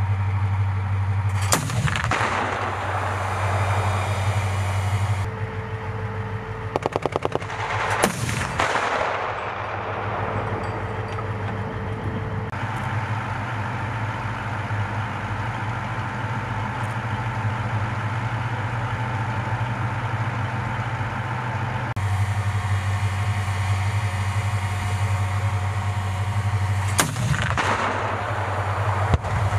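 Bradley fighting vehicles' diesel engines running steadily under loud, echoing single shots from the 25 mm Bushmaster chain gun, three heavy reports several seconds apart, near the start, about eight seconds in and near the end. A short rapid burst of gunfire comes about seven seconds in.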